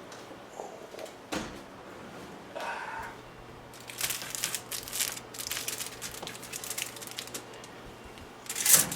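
Aluminium foil crinkling and rustling in quick, dense bursts over several seconds, with a couple of sharp knocks and a loud clunk near the end. A low steady hum comes in about three seconds in.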